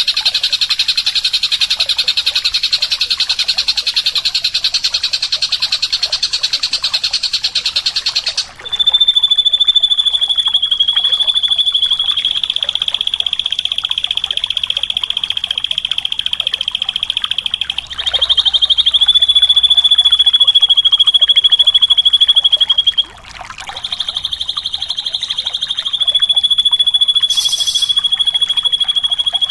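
Drongo (srigunting) song from a masteran recording: a long, rapid, buzzy trill for about eight seconds, then a high, thin, sustained trill that breaks off briefly twice and resumes.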